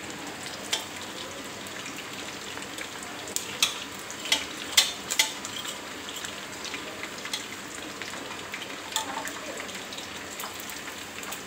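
Chicken pieces deep-frying in hot oil in a metal pot, a steady sizzle. Metal tongs click against the pot as the pieces are turned, with a cluster of sharp clicks around the middle and another near the end.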